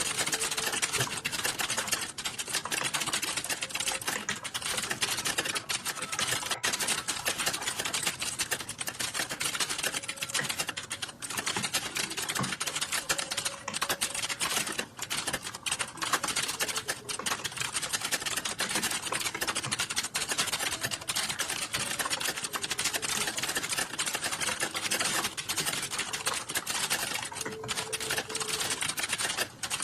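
Fast, continuous typing on a computer keyboard: a dense, unbroken stream of key clicks during a timed typing test.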